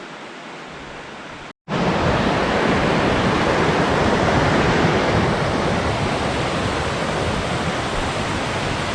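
Rushing water of a fast, rain-swollen creek. About a second and a half in it cuts out for a moment and comes back much louder and steady.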